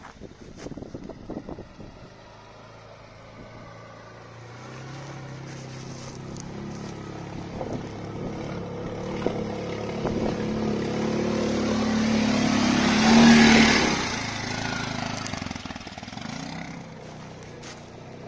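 Quad bike (ATV) engine running as it drives through a flooded creek toward the microphone, growing steadily louder. It is loudest about thirteen seconds in, with a rush of splashing water, then drops away.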